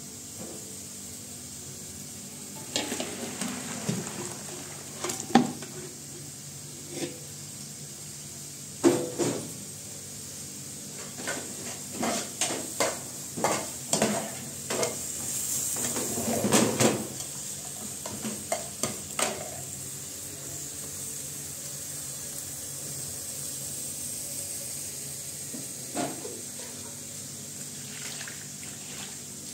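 Metal pots, pans and a cooking utensil clanking and scraping on a gas stove as a pan is stirred: a long run of knocks and scrapes through the first two-thirds, then one more knock near the end. Under it runs a steady sizzle.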